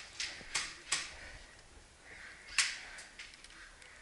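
Sharp single shots of airsoft guns firing semi-auto, echoing in an indoor hall: three in quick succession in the first second, then one more about two and a half seconds in.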